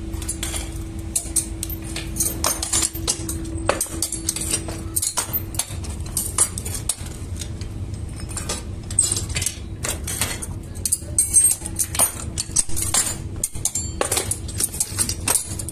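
Irregular clinks and clanks of iron rods, steel moulds and scrap metal being handled around a casting furnace, over a steady low hum.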